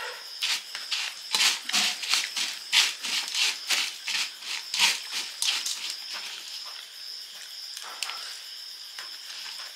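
Metal spoon scooping and stirring puffed rice (muri) in a steel bowl: a quick run of crisp rustles and scrapes that eases off about six seconds in. Crickets chirp steadily behind it.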